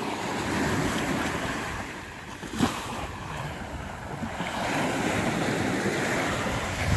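Surf washing on the shore with wind buffeting the microphone, the noise swelling and easing; a single knock about two and a half seconds in.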